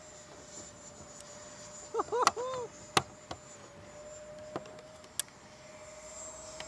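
The twin 50 mm electric ducted fans of an XFly Su-27 jet in flight, a steady whine whose pitch sags slightly now and then. About two seconds in there are three quick chirps that rise and fall, along with a few sharp clicks.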